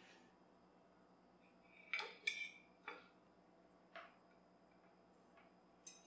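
Metal kitchen tongs clinking against a ceramic plate as waffles are set down on it: a few short clinks, the loudest pair about two seconds in with a brief ring, then lighter taps.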